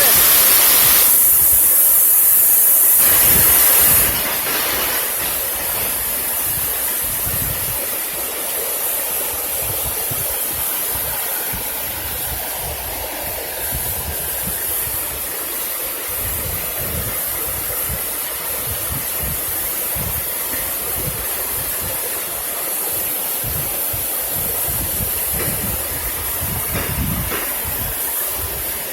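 Waterfall rushing, a steady roar of falling water; it is louder and hissier for the first four seconds, then settles to a steady level.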